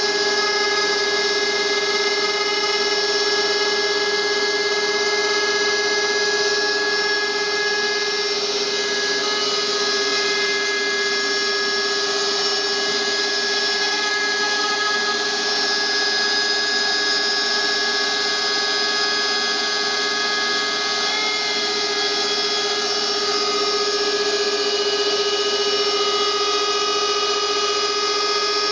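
Router spindle on a homemade CNC machine running at a steady high-pitched whine as the machine cuts out triangles.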